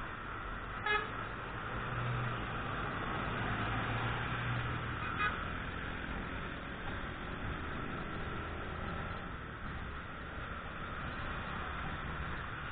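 Motorcycle riding through city traffic: steady engine and road noise, with two short horn toots, about a second in and again about five seconds in.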